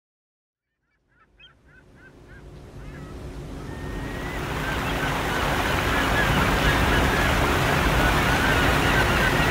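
Silent for about a second, then a fade-in: a quick series of about six short bird calls, followed by the rush of churning river water and wind that swells over a few seconds and then holds steady.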